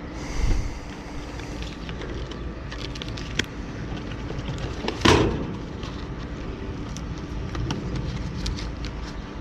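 Small clicks and taps of hands working on parts, with a thud about half a second in and one sharp knock about five seconds in, over a steady low rumble.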